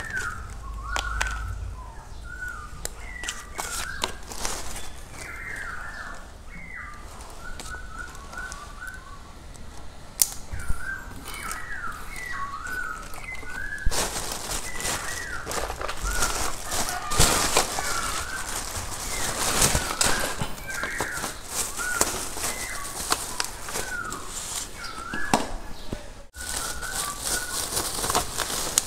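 Small birds chirping over and over in short, quick calls. From about halfway through, plastic bags rustle and crinkle loudly as parts are pulled out of them.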